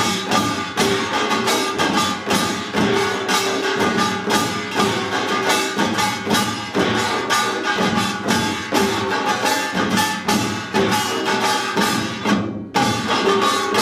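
Korean pungmul percussion band playing pangut: janggu hourglass drums and buk drums struck in a fast, dense rhythm over ringing metal gongs. The sound briefly goes dull about twelve seconds in.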